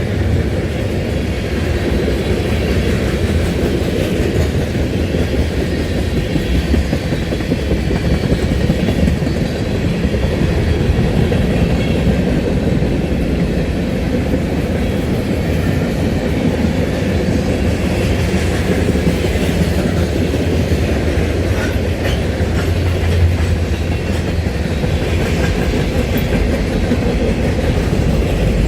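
Railroad cars rolling past: the steady, continuous noise of wheels running on the rails.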